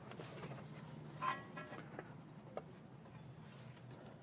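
Faint metallic clinks and ticks as the outer end of a new CV axle is worked into the wheel hub, one clink ringing briefly about a second in, over a steady low hum.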